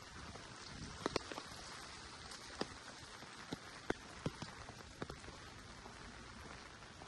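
Rain falling: a steady hiss with irregular sharp drops ticking close by, heaviest in the first half.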